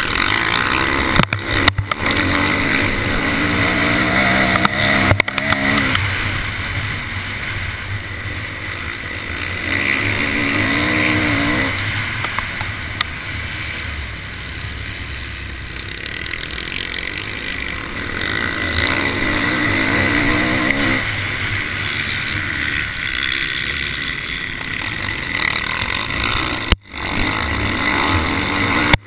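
Motocross bike engine heard from on board, revving up and falling back again and again as the rider accelerates and shifts. The sound cuts out briefly a few times, most deeply near the end.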